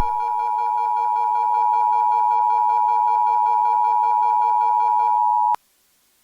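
Emergency Alert System two-tone attention signal, two pitches close together just under 1 kHz sounding at once, held steady for about five and a half seconds and then cutting off abruptly. A fainter, lower buzzy tone runs beneath it and stops just before.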